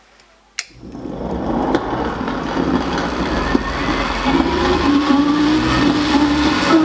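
A small electric motor, the mini lathe's drive, switched on with a click about half a second in, spinning up over a couple of seconds and then running steadily with a wavering hum.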